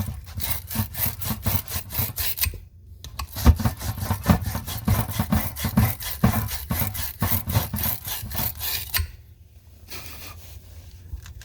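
Rapid back-and-forth scrubbing on a copper pipe end, about four strokes a second: the metal being cleaned bright for soldering before flux goes on. It pauses briefly under three seconds in, then goes on until it stops about nine seconds in.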